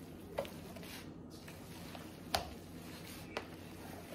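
Hands squeezing and kneading raw ground beef meatloaf mixture (beef, eggs, ketchup, seasoning salt) in a plastic bowl: faint squelching, with three short sharp wet smacks, about half a second in, near the middle (the loudest), and near the end.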